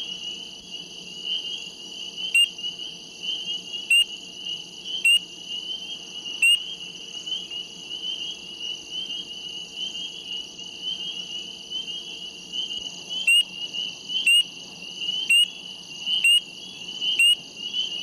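A dense chorus of spring peepers calling steadily, with one nearby peeper giving loud, short rising peeps about once a second: four in the first third and five more near the end.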